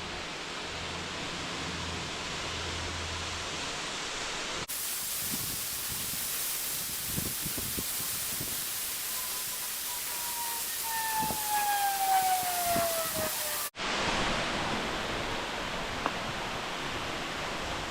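Steady rush of a waterfall, heard in three edited sections with abrupt changes in tone between them. In the middle section a whistle-like tone glides slowly downward over several seconds and is the loudest sound before it cuts off.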